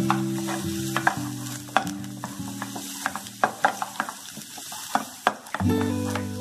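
Minced garlic sizzling in hot mustard oil in a ceramic-coated frying pan, with a wooden spatula scraping and tapping against the pan as it is stirred, over soft background music with sustained notes.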